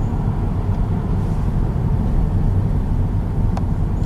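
Inside a moving car: a steady low rumble of the engine and tyres rolling over an unpaved road, with a faint click about three and a half seconds in.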